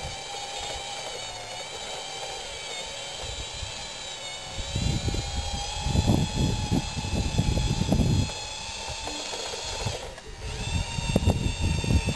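Radio-controlled scale bulldozer's motors and gears whining steadily as it drives and pushes dirt, with irregular low rumbling surges from about halfway through. The whine cuts out briefly near the end and then picks up again.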